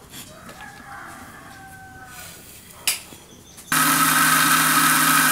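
A click, then an electric mixer-grinder (mixie) is switched on about two-thirds of the way in and runs at a steady speed, blending fruit, boiled carrot and frozen milk pieces in its jar. Before it starts, a faint drawn-out call can be heard in the background.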